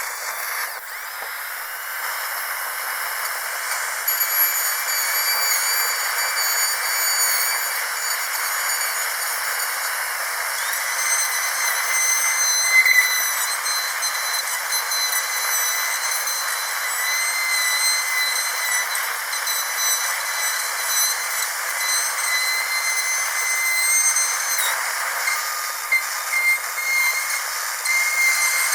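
Dentist's drill whining at a high, steady pitch over a continuous hiss, its tone shifting a little several times.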